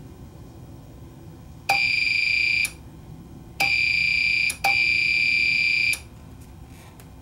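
APC Back-UPS's built-in alarm beeping three times, each a steady high beep about a second long, the last a little longer: the UPS has switched to battery power because its input voltage sagged to about 100 volts. A few faint clicks follow near the end.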